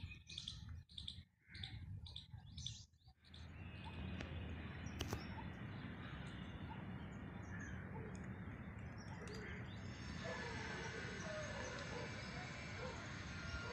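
Birds chirping in short, high, repeated calls for about three seconds, then a steady outdoor background hum. From about ten seconds in, music with held notes comes in over it.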